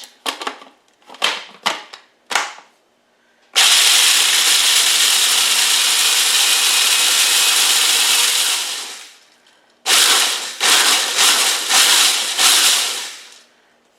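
Food processor crushing small pretzel twists into crumbs: a few clicks as it is set going, then the motor runs steadily for about five seconds with the pretzels grinding, stops, and is pulsed in several short bursts near the end.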